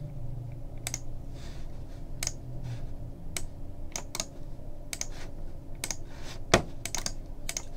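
Sparse, irregular clicks of a computer keyboard and mouse, one click clearly louder than the rest about six and a half seconds in.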